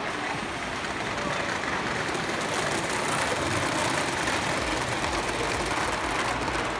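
Garden-scale model freight train rolling on its track: a steady, noisy rumble of wheels on rails, a little louder midway as the boxcars pass close.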